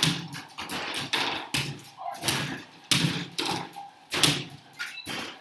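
Basketballs shot in quick succession at a home arcade basketball hoop game: repeated thuds of balls striking the backboard and rim and dropping back onto the netted return ramp, about one to two a second.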